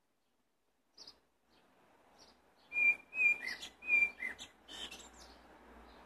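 A blackbird singing: a short high chirp, then a phrase of three clear whistled notes, each followed by a lower down-slurred note, that ends in thin, high twittering notes.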